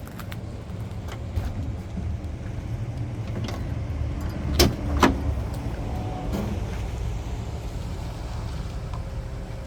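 Two sharp knocks about half a second apart near the middle, over a steady low rumble.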